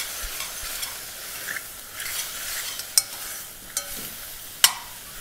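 Chopped mushrooms, dried porcini and thyme sizzling in a copper saucepan over a high flame while a metal spoon stirs them, with a few sharp clicks of the spoon against the pan, the loudest about three seconds in and just before the end.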